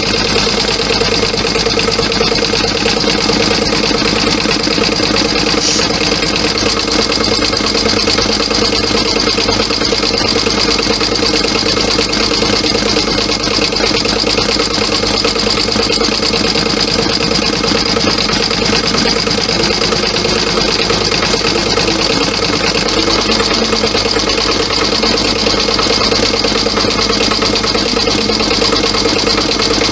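Brother Innov-is computerised embroidery machine stitching out a design, the needle running at a fast, even rate while the hoop carriage moves the fabric.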